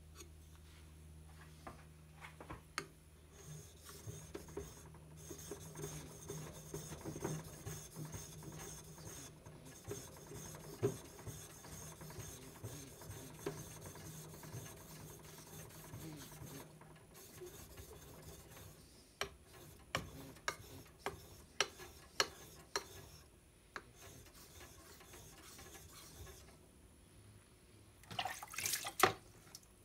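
A blue-steel deba knife being rubbed back and forth on a wet Shapton Pro 2000 waterstone: a soft, steady scraping, broken by a run of sharp clicks about two-thirds of the way through and a louder cluster of knocks near the end.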